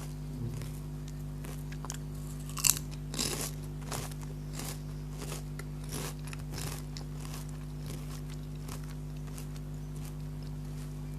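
Crisp Lay's potato chips bitten with one loud crack, then chewed close to the microphone in irregular crunches that thin out toward the end.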